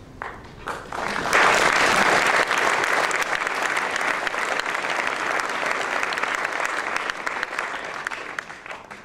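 Audience applauding: a few scattered claps, then full applause from about a second in that gradually fades toward the end.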